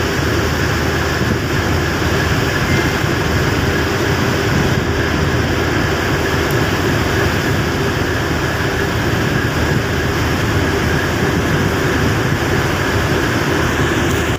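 Steady outdoor rumble and hiss with no distinct events, heaviest in the deep range.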